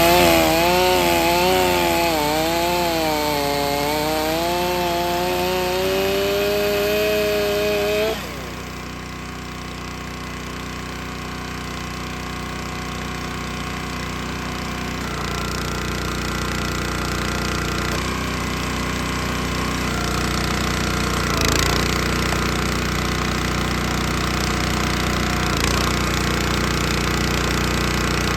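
Stihl 500i two-stroke chainsaw running under load in a cut, its engine pitch wavering up and down, for about eight seconds. Then it drops off abruptly, and a lower, steadier engine sound carries on, slowly getting louder.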